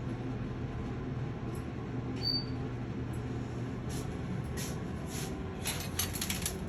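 Steady low room hum with a brief high squeak about two seconds in and a scatter of soft clicks and scratches near the end.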